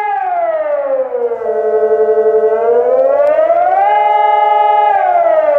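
Civil defense siren wailing as a warning: its pitch slides down, holds low, climbs back up, holds high and falls again in a slow cycle of about five seconds. A second, steady siren tone joins about a second and a half in.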